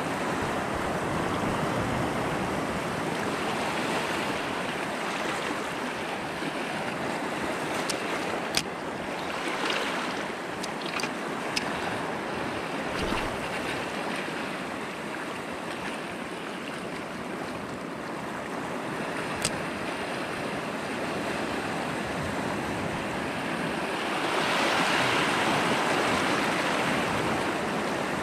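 Surf washing and breaking over a shallow coral reef edge: a steady rush of water that swells louder near the end, with a few short clicks in the middle.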